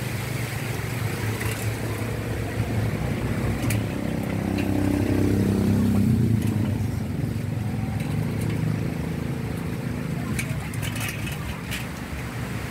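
A motor vehicle's engine rumbling, swelling to its loudest about halfway through and then fading as it passes. A few sharp clicks come near the end.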